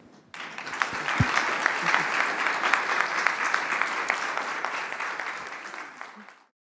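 Audience applauding: many people clapping, starting a moment in, easing a little, then cutting off suddenly shortly before the end.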